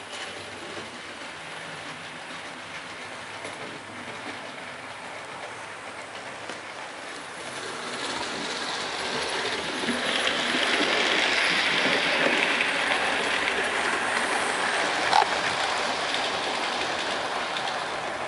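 Hornby OO-gauge model train running along the track, growing louder from about eight seconds in as it approaches, with a sharp click about fifteen seconds in, then easing off as it passes.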